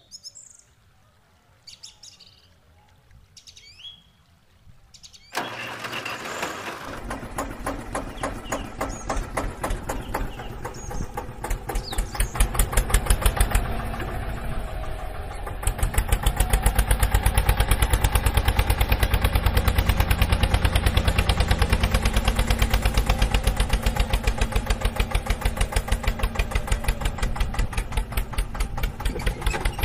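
Tractor engine starting abruptly about five seconds in and then chugging with a rapid, even beat, louder from about sixteen seconds in. Before it, faint bird chirps.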